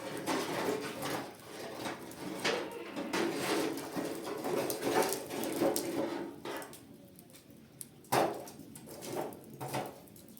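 Irregular knocking and clattering of hard objects, busy for the first six seconds, then quieter, with one sharp knock about eight seconds in.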